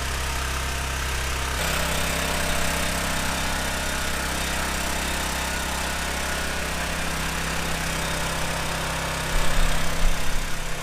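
Portable generator engine running steadily, powering a boat battery charger. Its tone shifts slightly about one and a half seconds in, with a few low bumps near the end.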